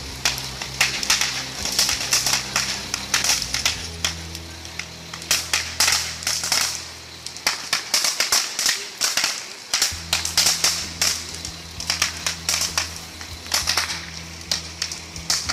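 A burning house crackling and popping: many sharp irregular cracks and bangs over a low steady hum, which drops out for a couple of seconds around the middle.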